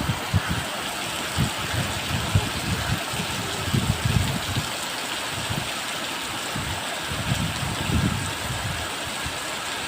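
Steady hiss of rain, with irregular low rumbles coming and going.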